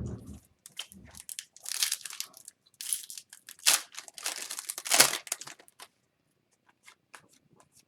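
Upper Deck Series 1 hockey card pack wrapper crinkling and tearing as it is opened, in a run of irregular rustling bursts that die down to a few faint ticks near the end.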